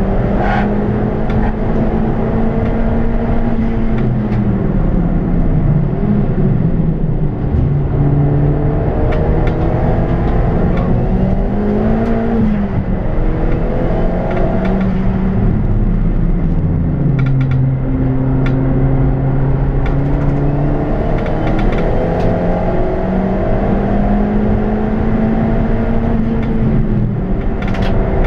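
Ford Fiesta ST's turbocharged four-cylinder engine heard from inside the cabin at track pace. Its note climbs and drops back again and again as it accelerates, changes gear and slows for corners, over a constant low rumble of road noise.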